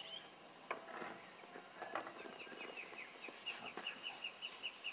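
A bird calling a rapid, even run of short high chirps, about five a second, starting about two seconds in, with a few soft knocks before it.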